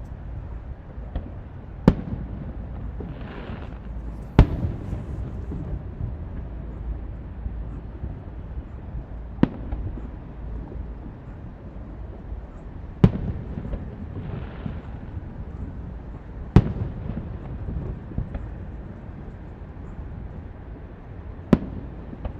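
Fireworks display: six sharp aerial shell bursts at uneven intervals of about two to five seconds, each booming with a rumbling echo, over a steady low rumble.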